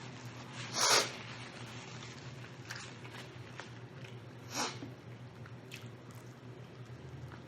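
Close-miked eating of rotisserie chicken: biting and chewing with small wet clicks, and two louder noisy bursts, one about a second in and one at about four and a half seconds.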